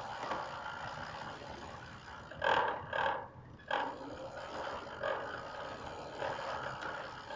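Water-well drilling rig running steadily as it bores deeper, with three louder surges of noise about halfway through.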